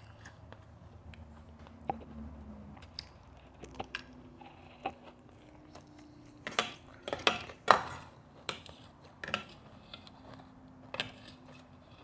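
Close-up chewing and crunching of mouthfuls of shaved ice, with a run of loud, sharp crunches a little past the middle. Between them come scattered light clicks of a metal spoon against a stainless steel bowl.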